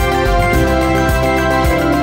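News-bulletin intro theme music: sustained synthesizer chords over a steady electronic beat.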